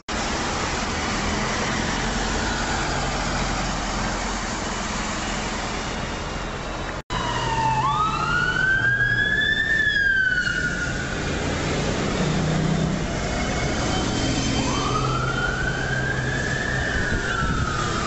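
Busy road traffic and bus engines, then, after a sudden cut about seven seconds in, an emergency vehicle siren wailing in two slow rising-and-falling sweeps over the traffic.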